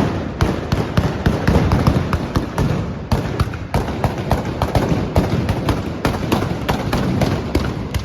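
A volley of trabucs, blunderbusses loaded with blank black-powder charges, fired by a group of trabucaires: a fast, irregular barrage of loud bangs, several a second and overlapping, with a rumble between them.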